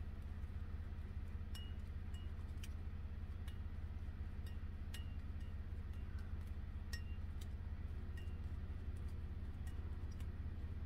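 Light, irregular clinks and ticks of hard objects touching, roughly one a second, some with a brief ring, over a steady low hum.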